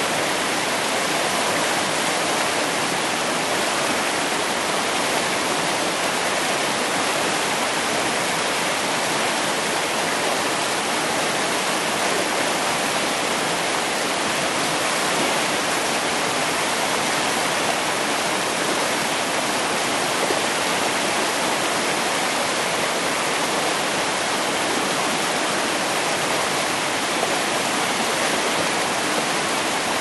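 Mountain stream running fast over boulders in shallow rapids: a steady, even rush of white water.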